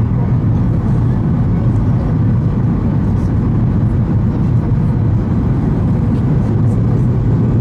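Cabin noise of a Boeing 737-800 rolling fast down the runway just after landing, heard from a window seat over the wing: a steady, heavy low rumble of engines, wheels on the runway and airflow.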